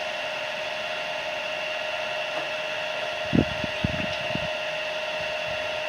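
Steady whirring hum of a fan-like motor with a constant tone in it. A few soft low knocks from handling close to the microphone come about three and a half seconds in.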